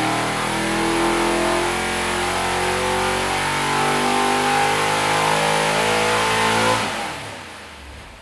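Jon Kaase's 404ci Boss 429 V8, a long-stroke, small-bore two-valve engine, running on an engine dyno with its pitch wandering a little. The sound dies away about seven seconds in.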